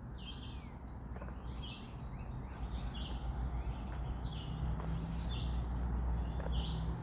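Songbirds chirping: short, high, downward-sliding chirps repeated about once a second, over a steady low outdoor rumble.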